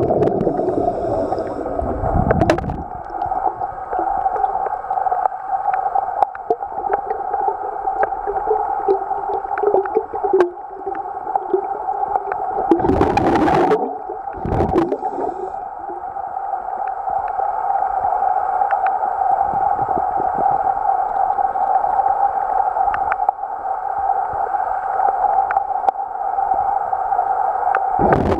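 Pool pump hum carried through the water and recorded underwater: a steady drone with faint gurgling and scattered small knocks. There is a louder rush about thirteen seconds in.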